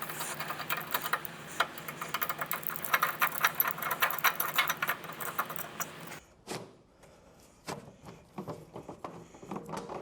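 A tool undoing the side-rail fasteners on a Matrix T3X treadmill, running with rapid clicking, stops suddenly about six seconds in. A few scattered knocks and clicks of parts being handled follow.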